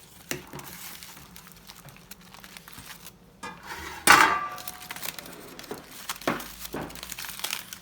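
Kitchen dishes being handled while food is moved onto a plate: scattered light knocks and scrapes, with one loud clink about four seconds in that rings on briefly, and a few more knocks near the end.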